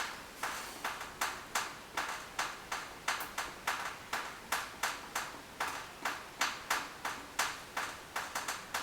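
Water dripping from a shower head in quick, even drips, about three a second. This is the leftover water draining from the shower head after the valves are shut off, which is what the owner takes it for, not a valve leak.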